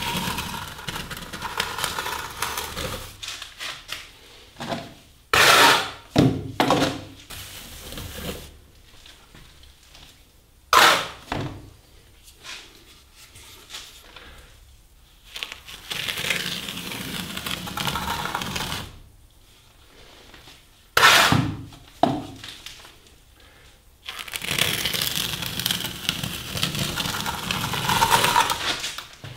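Plastic smoothing trowel scraping across fresh plaster in a door reveal, in several long drawn strokes with pauses between them, broken by a few sharp clacks of the trowel.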